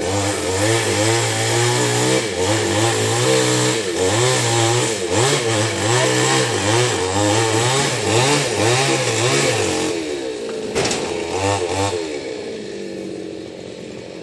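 New West 588 two-stroke chainsaw cutting a coconut palm trunk, its engine revving up and down over and over. About ten seconds in it drops back, revs briefly once more, and settles to a quieter idle.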